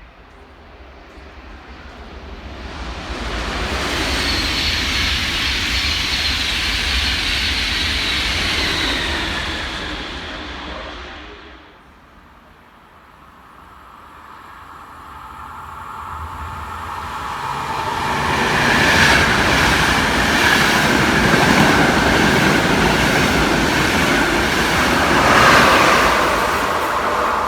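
Two trains passing in turn on the railway line. The first builds up from about two seconds in and fades out before the halfway point. The second builds from the middle and is loudest through the second half, with a steady whine and repeated wheel clicks.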